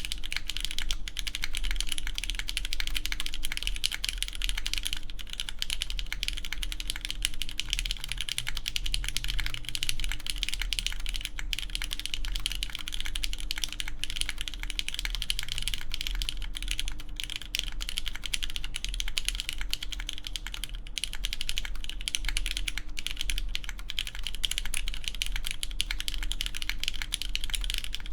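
Continuous fast typing on a mechanical keyboard with lubed linear Cherry MX Red switches, an aluminum full plate and GMK keycaps: a dense, steady run of soft key clacks without pauses.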